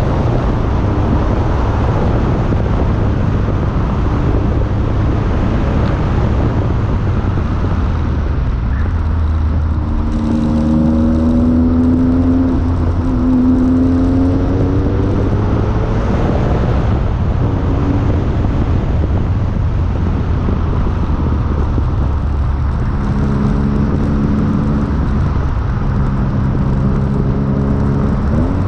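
Toyota MR2 Spyder's twin-turbo 1MZ-FE V6 driving at speed, its note climbing in pitch in several pulls around the middle and again near the end, over a steady heavy rumble of wind and road noise.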